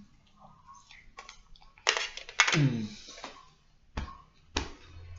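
Eating utensil clicking against a plate while eating, four sharp clicks spread over a few seconds, the loudest around the middle.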